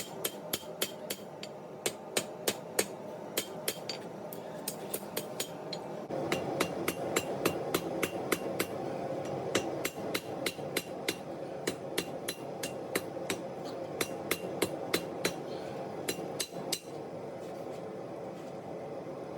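Hand hammer striking leaf-spring steel being forged into a knife blade: a steady run of sharp ringing metal-on-metal blows, about two to three a second, over a steady hum. The blows stop near the end.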